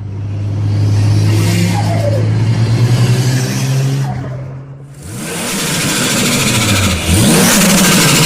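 Turbocharged car engine revving up and dropping back several times, with a fast fluttering chatter as the throttle shuts: turbo flutter, the compressor surging with no blow-off valve to vent the boost.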